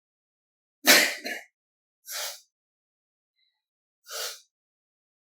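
A woman's sneeze, brought on by tickling her nose with a handkerchief: one loud, sudden sneeze about a second in. Two shorter, quieter breathy sounds follow about a second and three seconds later.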